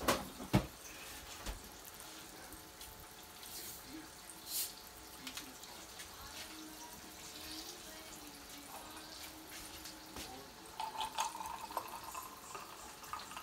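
Turkey chops frying in a skillet with a low, steady sizzle, with a few knocks near the start. Near the end comes the splashing and fizz of Pepsi poured from a plastic bottle into a glass.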